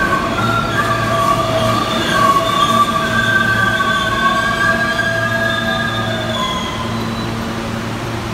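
New York City subway train pulling into the station and braking to a stop, its wheels squealing in several high, drawn-out tones that fade out about seven seconds in, over a steady low hum.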